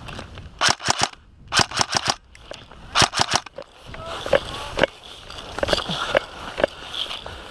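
Airsoft guns firing three quick bursts of four or five shots each, followed by scattered single shots.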